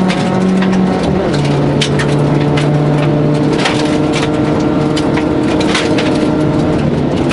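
Rally car engine pulling at steady speed on a gravel road, heard from inside the cabin; its note steps down once about a second in. Gravel and stones crackle and clatter against the car's underbody throughout.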